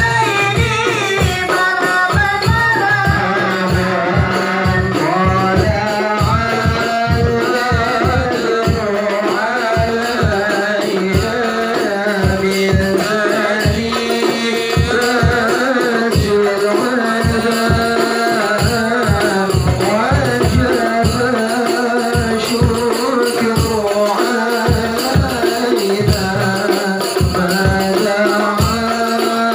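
Voices singing sholawat together in Arabic over hand drums beating a steady, fast rhythm, with a jingling shimmer above.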